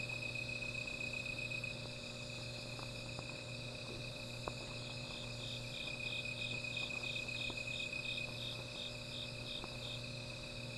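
Night insects calling: one cricket trills steadily at a high pitch throughout, while a second chirps in even pulses about three times a second from about halfway through to near the end. A few faint ticks, the sharpest about four and a half seconds in, are the crackle of a small fire.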